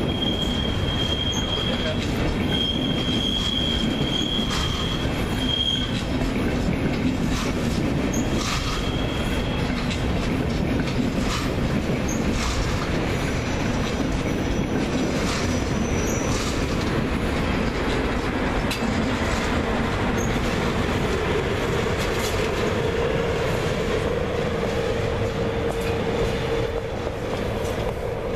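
Regional passenger train of red DB Regio coaches rolling past close by, a continuous rumble with the wheels clacking over rail joints and points. A high wheel squeal sounds during the first six seconds or so.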